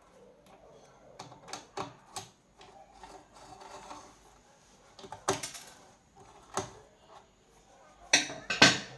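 Irregular clicks and knocks of small hard objects being handled, with a louder knock about halfway through and the loudest pair near the end.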